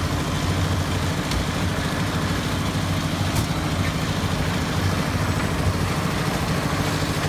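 Engine of a concrete mixer running steadily, with a fast, even low throb.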